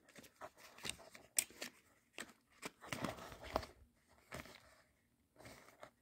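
Cardboard packaging being handled: a paper sleeve slid off a small pocket-knife box and the box turned in the hands, giving quiet, scattered scrapes and light taps.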